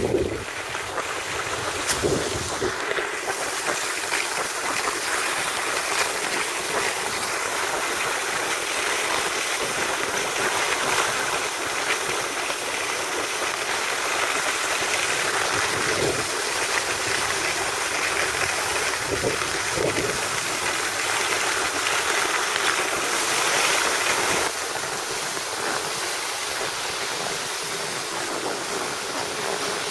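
Steady hiss of skis sliding over groomed snow, with air rushing past the microphone during a downhill run. The hiss eases a little near the end.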